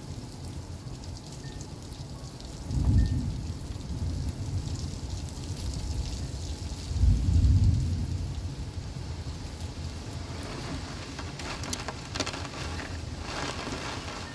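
Heavy thunderstorm rain pouring steadily, with two deep rumbles about three and seven seconds in, the second the louder.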